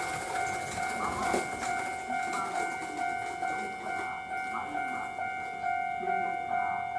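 Japanese level-crossing warning bell ringing in even, repeating pulses while a Kintetsu train rolls past. The train's wheel and rail noise is loudest at the start and dies away over the first couple of seconds.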